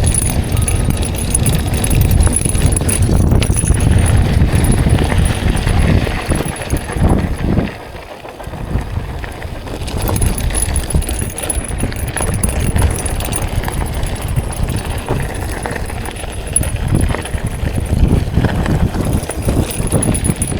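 Mountain bike ridden fast over a rough dirt and rock trail: knobby tyres crunching over the ground and the bike rattling, with a heavy wind rumble on the microphone. The noise eases briefly about eight seconds in, then picks up again.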